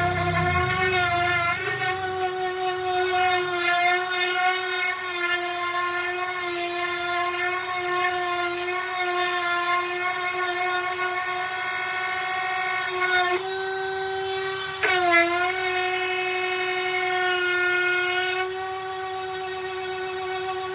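Electric power sander running steadily against wood, a constant high motor whine whose pitch shifts as pressure on the pad changes and dips sharply for a moment about fifteen seconds in.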